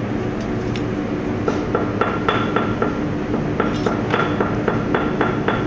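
Rapid metallic tapping, about three or four sharp ringing strikes a second, starting about a second and a half in, over a steady machine hum.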